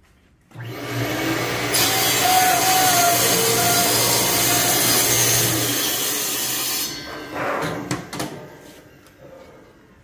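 Acrylic cutting machine's saw starting up with a steady hum, then its blade carriage sawing through a 6 mm acrylic sheet with a loud, even cutting noise for about five seconds. The cut stops about seven seconds in, and the sound dies away over the next two seconds with a few knocks.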